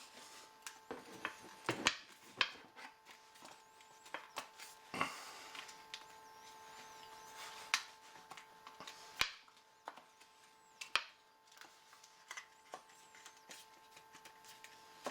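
Scattered clicks and knocks of a Ruger 10/22 rifle being taken apart by hand: the plastic barrel band is worked off and the barrel and action are handled out of the stock. A faint steady hum runs underneath.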